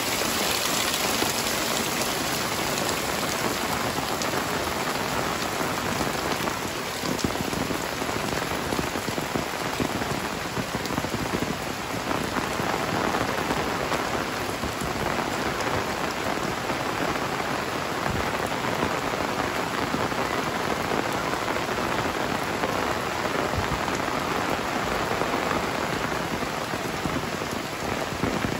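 Heavy rain pouring steadily onto puddled ground, leaves and a tiled roof: a dense, even hiss of rain with no letup.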